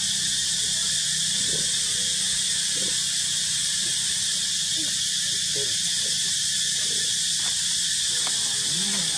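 Steady high-pitched hiss throughout, with a few short, soft calls from long-tailed macaques, a mother and her nursing infant.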